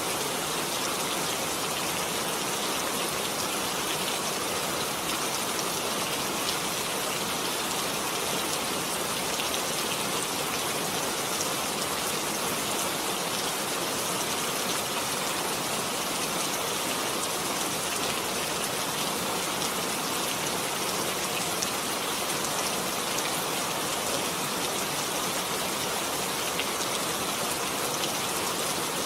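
Heavy rain falling steadily, a dense even hiss of drops with fine individual patter through it.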